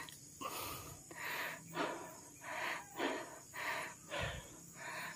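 Footsteps walking at an even pace, about two steps a second, each a soft swishing crunch like feet through grass or leaf litter.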